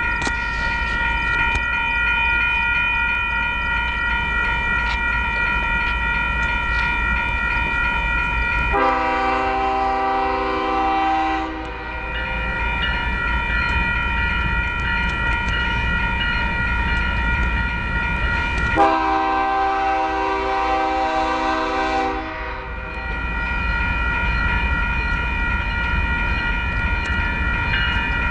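Approaching diesel train sounding its multi-note air horn: a lower chord of blasts about 3 s long comes in twice, about nine and nineteen seconds in, over a steady high ringing chord and the deep rumble of the locomotive.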